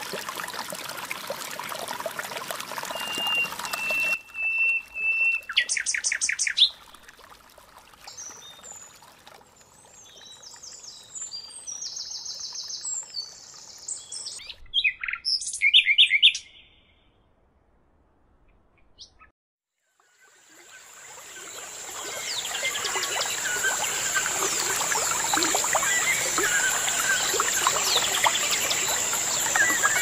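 A stream flowing at the start, then songbirds: a held whistled note and several rapid trills, a short near-silent gap past the middle, and then a dense chorus of many birds chirping over a steady high hiss.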